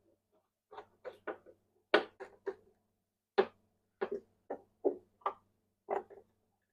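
Irregular series of short clicks and knocks from handling parts and tools while fitting the speaker into its cabinet and hooking up and fastening its wires.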